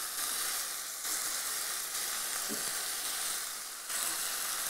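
Cauliflower florets with onion and tomato frying in a kadai, a steady sizzle.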